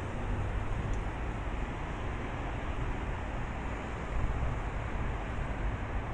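Steady city background noise: distant road traffic with wind buffeting the microphone, a low uneven rumble under an even hiss.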